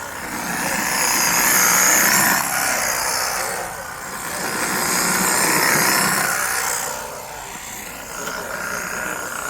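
Battery-operated brush cutter running, its sound swelling twice as it works: for about two seconds from half a second in, and again from about four and a half seconds in.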